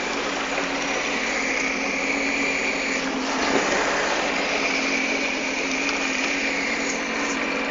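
Sea-Doo GTX155 jet ski engine running steadily, a constant low hum and higher whine over a steady hiss.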